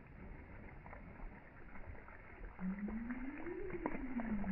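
Spray from an underwater firecracker blast falling back onto a pond, many droplets pattering on the water surface. Past the halfway point a low tone rises in pitch and then falls again.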